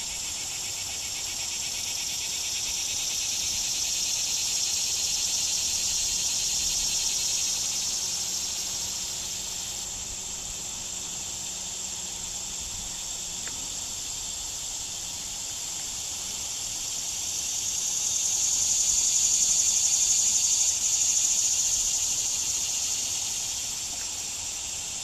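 A steady chorus of insects: a high, continuous buzzing trill that swells louder twice, in the first third and again near three quarters of the way through.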